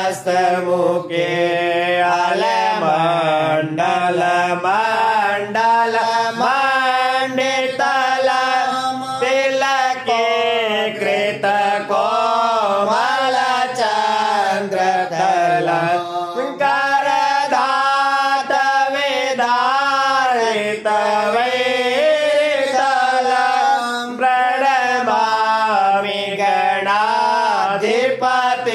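A priest chanting Sanskrit dhyana (meditation) verses to Lord Ganesh in a melodic recitation, with notes held and wavering and short pauses for breath.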